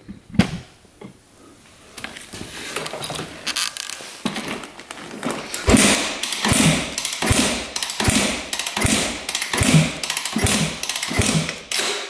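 A 2001 Yamaha WR250F four-stroke single being kicked over again and again with the kick-starter, about a stroke a second, with a compression gauge in the spark plug hole and the throttle held open. The strokes begin about two seconds in. This is a compression test that reads a low 110 psi, where over 150 is expected.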